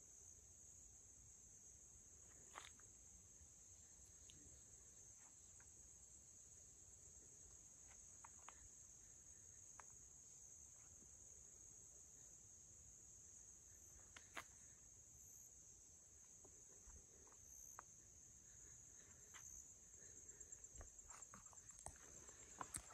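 Faint, steady, high-pitched chorus of insects trilling in woodland, with a few scattered snaps, and footsteps on a forest trail coming in near the end.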